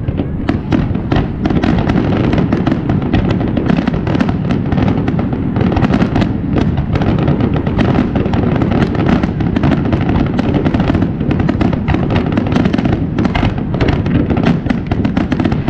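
Aerial fireworks shells bursting in a dense barrage, many loud bangs in quick succession without a pause.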